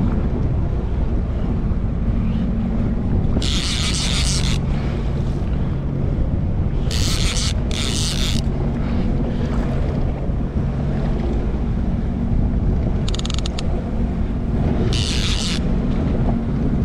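Jetski engine running at low, steady revs, with wind buffeting the microphone and water splashing against the hull in several brief hissing bursts.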